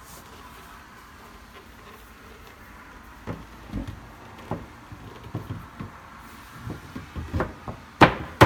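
Wooden bookcase top panel being fitted down onto its cams: scattered knocks and taps of wood on wood. Near the end these give way to a run of loud, sharp knocks, about three a second.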